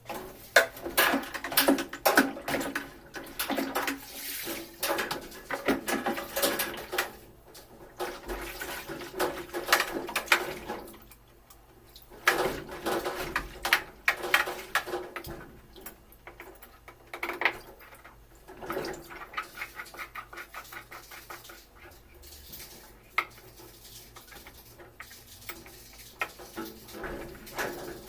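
Water splashing and running while the dismantled washing machine's tub parts are scrubbed and handled, with irregular scraping and clattering strokes and a quick run of scrubbing strokes later on.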